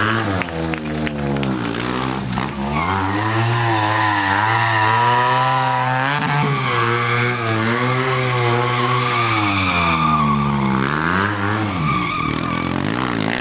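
Stunt motorcycle engine held at high revs, its pitch wavering up and down without a break as the throttle is worked. The revs drop and climb again briefly about two and a half seconds in and once more near the end.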